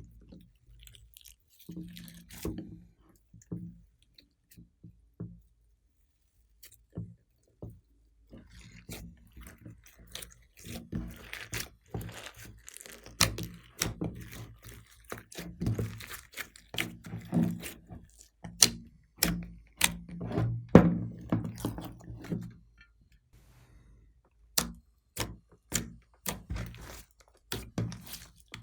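Hands kneading, pressing and stretching glossy slime, giving irregular sticky clicks, pops and soft thuds, busiest through the middle.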